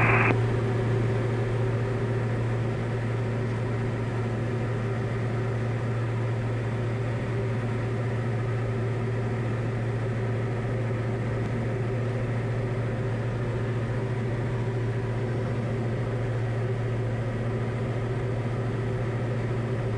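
Diamond DA40 light aircraft's single piston engine and propeller droning steadily in the cockpit during the climb-out after takeoff: a constant low hum with hiss over it.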